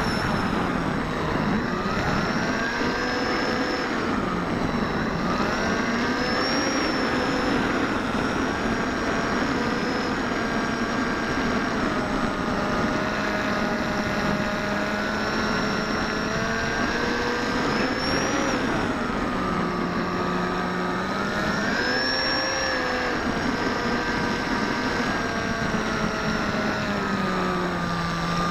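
Electric motor and pusher propeller of a Bixler foam RC plane in flight, heard from a camera on board. It gives a steady whining drone whose pitch rises and falls several times as the throttle changes, over a constant rush of airflow.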